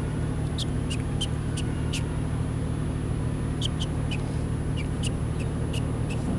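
Small birds chirping: short, sharp, high chirps that drop slightly in pitch, in two loose runs. They sit over a steady low hum.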